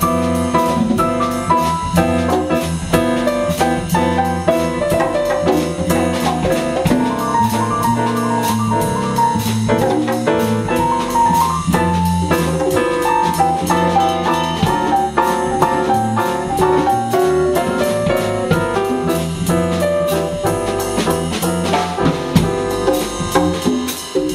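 Small jazz combo jamming: grand piano playing busy, moving lines over a drum kit's cymbals and a walking bass.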